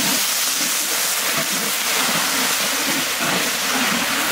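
Steady hiss of sugar and water boiling and sizzling in a hot wok, stirred with a metal spatula as it turns into a bubbling syrup.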